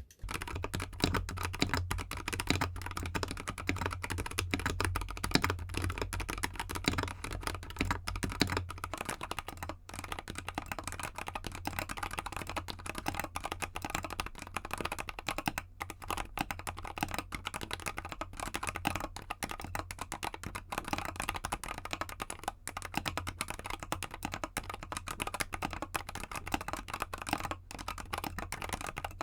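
Continuous fast typing on a GK64X mechanical keyboard with Gateron Cap Gold linear switches, XDA keycaps and an aluminium case, set on a bare desk. For about the first nine seconds the case is empty; after that it is stuffed with clay to damp the sound.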